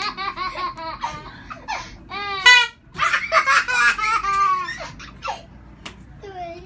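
A baby laughing heartily again and again, the laughter dying down after about five seconds.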